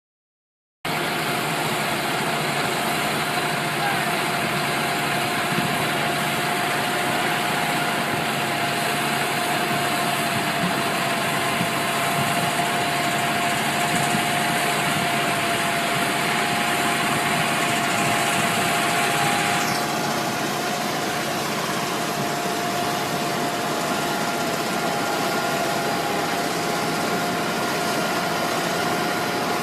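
A steady engine sound, like a machine idling, with a constant hum running through it. It cuts in suddenly about a second in, and turns duller about two-thirds of the way through.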